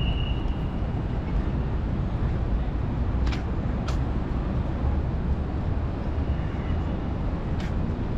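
City street traffic noise: a steady low rumble of passing vehicles, with a few sharp clicks about three seconds in, again half a second later, and near the end.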